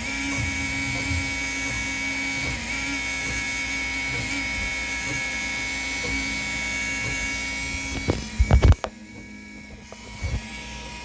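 Toybox 3D printer's stepper motors whining steadily as it prints. The whine stops about eight seconds in, followed by a few loud knocks.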